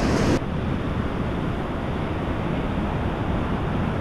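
Wind buffeting the microphone in an uneven low rumble, over the wash of breaking surf. The upper hiss drops away sharply about half a second in.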